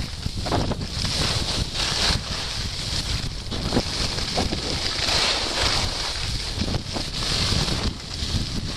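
Wind buffeting a moving action camera's microphone, over the hiss of skis sliding on packed snow, with short scraping swells as the skis turn.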